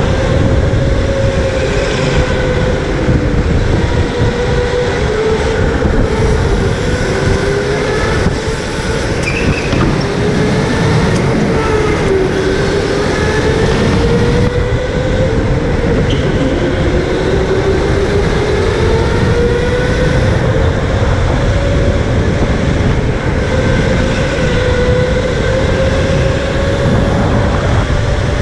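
Electric go-kart motor whining, its pitch rising and falling as the kart speeds up and slows through the corners, over heavy wind rumble on the helmet-mounted camera.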